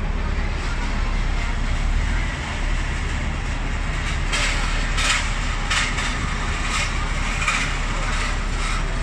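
Downtown street traffic heard from a stopped tram's upper deck: a steady low rumble of idling buses and cars. From about four seconds in, a run of short sharp clicks comes about once or twice a second.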